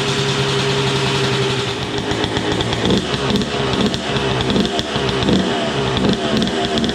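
Suzuki RM125 two-stroke engine running on its first start after a full rebuild, holding a steady idle for about two seconds and then running unevenly with rising and falling revs.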